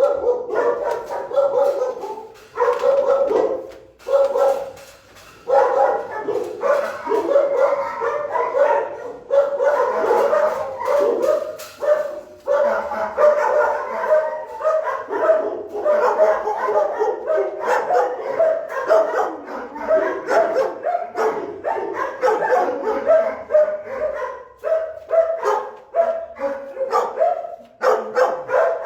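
Many large-breed dogs barking in shelter kennels, a loud, continuous, overlapping din of barks and yips with brief lulls about two and four seconds in.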